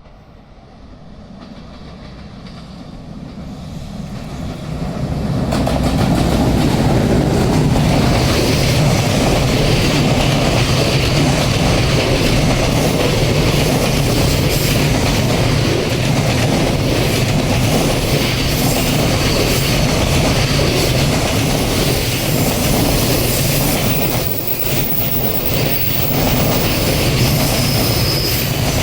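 A train approaches, growing louder over the first six seconds or so, then runs past with a steady, loud rumble, its wheels clacking over the rail joints.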